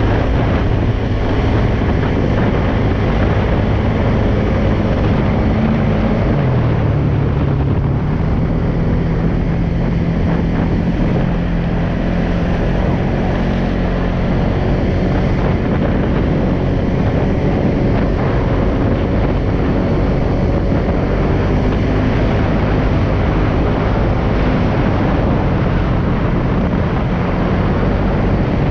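Polaris Sportsman 570 ATV's single-cylinder engine running steadily while under way, its pitch stepping up about seven seconds in and then holding. Wind noise on the microphone runs underneath.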